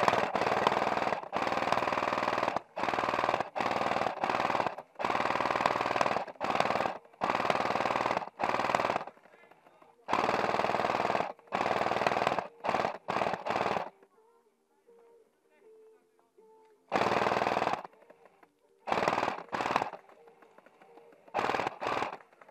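Cyma RPK airsoft electric gun firing on full auto at about 21 rounds a second, its gearbox buzzing in a run of bursts of a second or two, close together at first. After a quiet gap of about three seconds come a few shorter bursts.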